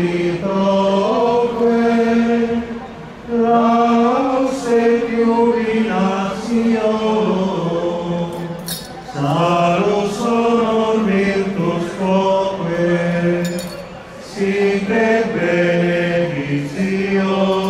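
Male voices chanting a slow liturgical hymn in unison, long held notes in phrases with short pauses for breath between them.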